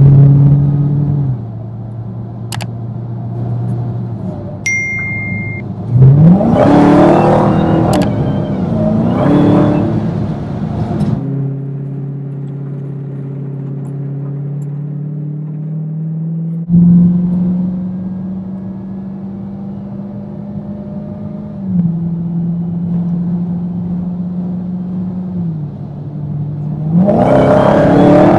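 2020 Dodge Charger SRT Hellcat Widebody's supercharged 6.2-litre HEMI V8 driving, running at steady revs with sudden jumps in pitch and loudness. It revs up hard about six seconds in and again near the end.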